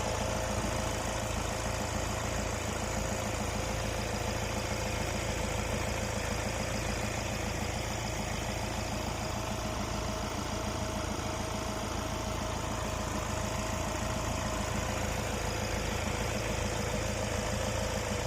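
Kia Carens 1.5-litre (1493 cc) four-cylinder turbo-diesel engine idling steadily just after start-up, with a steady faint whine over the engine note.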